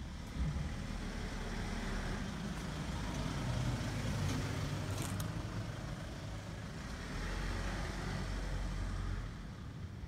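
Road traffic going by: a steady low rumble and hiss that swells about half a second in, dips briefly in the middle, and eases off near the end, with a couple of faint clicks around the middle.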